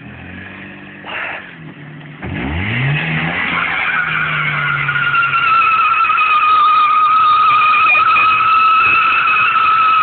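Opel Corsa's engine revs up about two seconds in, and then the tyres squeal in one long, steady squeal under wheelspin as the car turns tightly.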